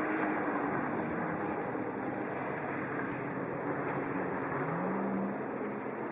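Jet ski engine running at speed on the water, a steady drone whose pitch rises briefly about four and a half seconds in.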